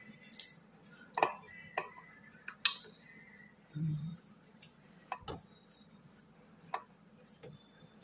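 Scattered, faint clicks and ticks of a small screwdriver working the metal screws of a washing-machine tap adapter as they are tightened onto the faucet spout.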